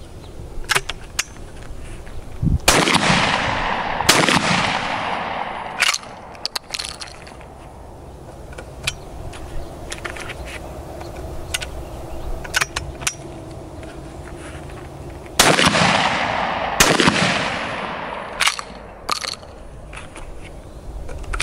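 A Darne-type 12-gauge side-by-side sliding-breech shotgun fired twice, the two shots about a second and a half apart, each with a ringing echo. A run of small metallic clicks follows as the breech is worked and shells are loaded, then another pair of shots about a second and a half apart, and more clicks near the end.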